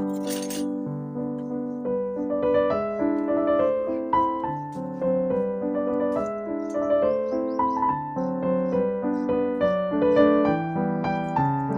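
Background music on piano, a steady melody of notes over low held chords, with a brief clink of small hard objects in the first second.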